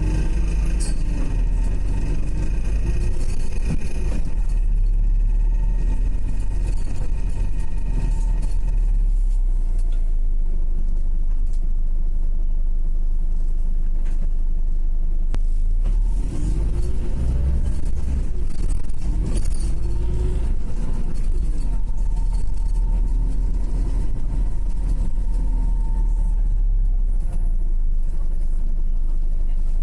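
Wright Gemini 2 hybrid double-decker bus on the move, heard from inside: a steady low rumble with whines that rise and fall in pitch as it speeds up and slows down, and a steady high tone running through. Among these is a weird noise that the owner cannot identify.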